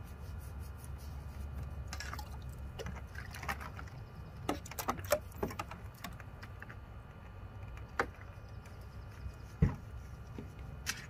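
Shallow water in a plastic kiddie pool splashing and dripping around a small wet dog as its coat is shampooed and rubbed by hand, in scattered short splashes, most of them in the first half, over a steady low rumble.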